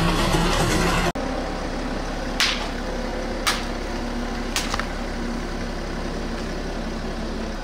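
A BMW car's engine idling steadily as its tyre rolls onto water-filled balloons. Four short sharp pops as the balloons burst, the last two close together.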